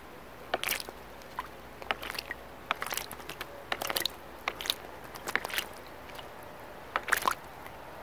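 Eurasian blackbird bathing in a shallow birdbath: quick bouts of splashing as it flicks water with its wings. The splashes come in short bursts about a second apart, with the biggest near the end.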